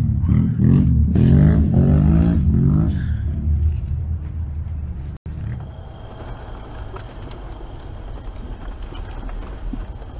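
Off-road vehicle engine revving up and down several times, loud and rumbling, then fading. After a sudden cut, a quieter, steady driving noise follows.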